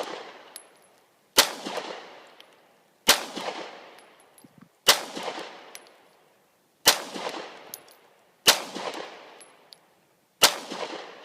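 A 9mm Glock 19 pistol firing six slow, evenly paced shots, one about every one and a half to two seconds, each crack followed by a ringing echo that dies away over about a second.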